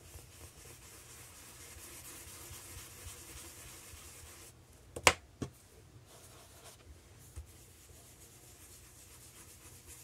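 Ink-blending tool and blending brush rubbing Distress Oxide ink onto watercolour paper: a faint, soft swishing. About halfway through comes one sharp click, followed by two lighter knocks.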